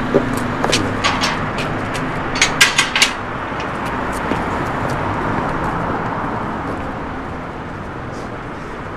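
Steady hum of distant city traffic, with sharp metallic clicks and clinks from a wrought-iron gate being swung open and latched shut, the loudest cluster about two and a half to three seconds in.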